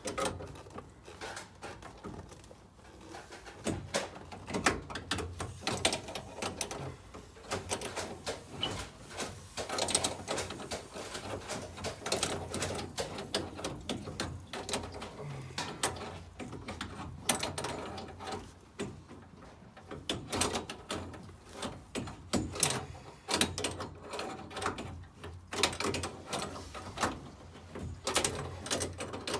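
Irregular metal clicks and knocks of a spanner working the nuts on a combi boiler's pipe connections, loosening them one after another.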